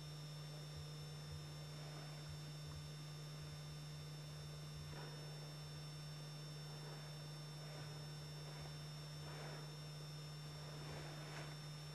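Steady low electrical hum with faint hiss and a thin high whine, with a few faint soft rustles about halfway through and near the end.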